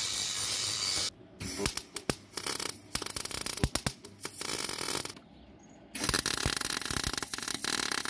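A cordless angle grinder cuts through a thin steel sheet with a steady hiss for about a second. Then a MIG welder crackles and spits in spurts, welding patch metal onto a rusted wheel arch, with a short pause about five seconds in.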